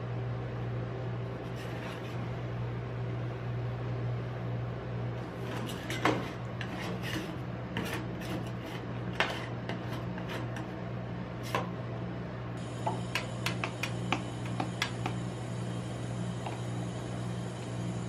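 Metal spatulas scraping and tapping on the steel cold plate of a rolled ice cream machine, with a scatter of sharp clicks and scrapes through the middle and a loud tap about six seconds in. A steady low hum runs underneath.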